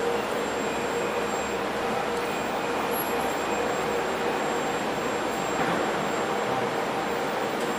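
Steady hum of a Metrowagonmash 81-775/776/777 'Moscow-2020' metro train standing at the platform with its doors open and its onboard equipment running, with a couple of faint steady whining tones.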